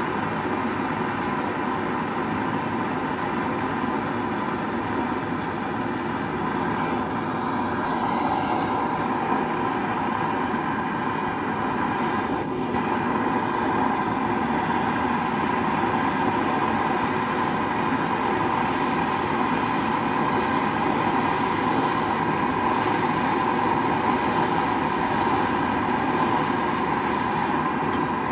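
Small gas torch running on kitchen LPG, its flame blowing with a steady hiss as it melts gold in a crucible.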